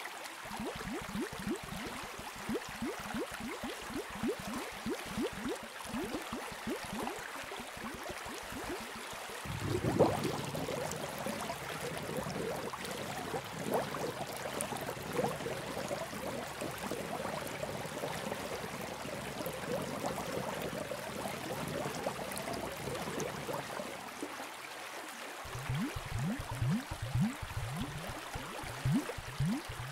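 Aquarium water bubbling and gurgling: a quick run of small bubble sounds, changing suddenly about a third of the way in to a fuller, steadier rush of water, with the small bubbling returning near the end.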